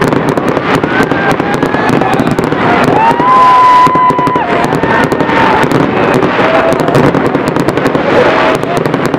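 Fireworks display: aerial shells bursting and crackling in rapid pops. Voices in the crowd call out and whoop over it, loudest about three seconds in.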